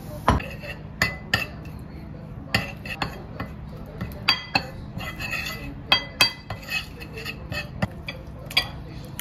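Metal spoon clinking and scraping against a ceramic bowl while stirring chilli oil into a powder to make a sauce, with irregular clinks about every half second.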